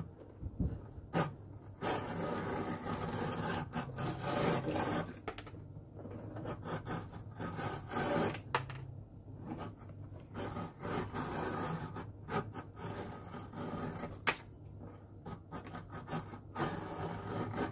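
Leather sole being trimmed to the edge of a shoe: repeated rough rasping strokes with sharp clicks between them.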